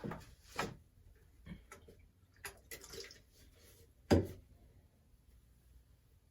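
Small handling noises: scattered soft clicks and brief rubs, with one louder knock about four seconds in.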